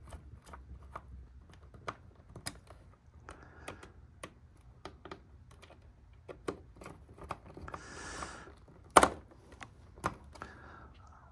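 Irregular small clicks and ticks of a hand screwdriver driving screws into a VHS cassette's plastic shell, with the cassette being handled on the bench; a brief scrape and then a louder click about nine seconds in.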